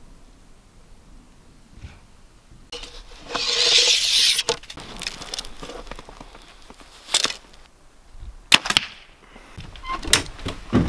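A loud rushing hiss lasting about a second and a half, then a compound bow being shot, heard as sharp snaps, the loudest pair about eight and a half seconds in.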